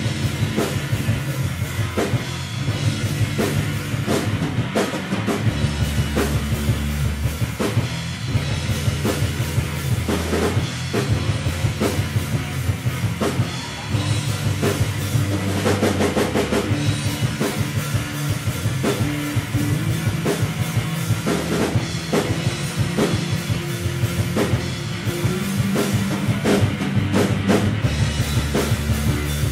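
Live rock band playing an instrumental passage with no vocals: electric guitar over a drum kit beating steadily, with cymbals and sustained low notes.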